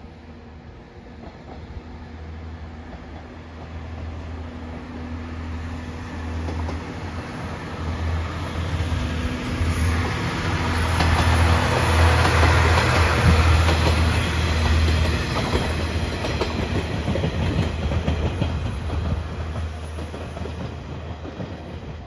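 Seto-Ohashi Line Anpanman Torokko diesel train passing: the engine drone and the clatter of wheels over rail joints build up, are loudest a little past halfway, then fade away.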